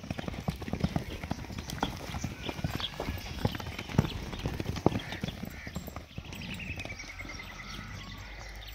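Hoofbeats of several horses galloping and cantering loose on sand, many quick irregular thuds. Near the end a horse whinnies, one call that falls in pitch.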